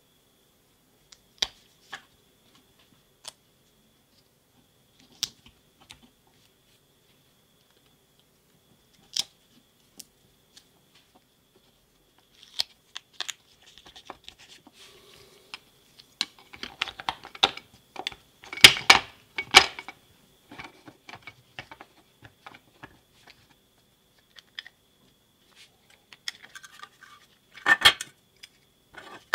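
Handling noise from cylindrical lithium cells and a plastic power-tool battery housing being fitted together by hand: scattered light clicks and taps, then a busier stretch of rustling with several sharper knocks about two-thirds of the way through, and another short cluster near the end. A faint steady high tone runs underneath.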